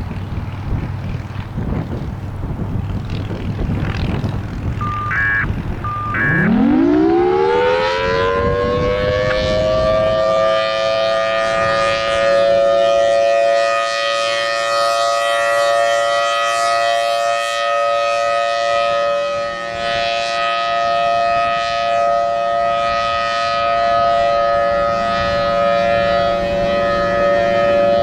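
Federal Signal Thunderbolt 1003A outdoor warning siren winding up about six seconds in, its pitch climbing fast from a low growl, then holding a steady alert tone with gentle swells in loudness. This is the short steady alert sounded on a routine siren test.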